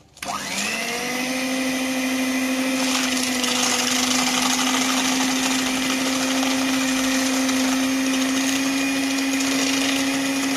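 Electric hand mixer with twin wire beaters whisking eggs and sugar. The motor starts just after the beginning and spins up in pitch within the first second. It then runs at a steady, even hum.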